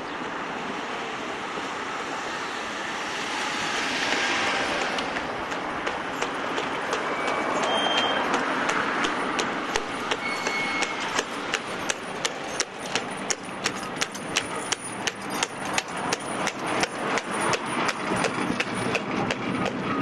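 Tram running along street rails with a steady rumble, its wheels clicking over the rail joints in an even rhythm that starts about six seconds in and gets faster as it picks up speed. A few brief high squeaks come between about seven and eleven seconds.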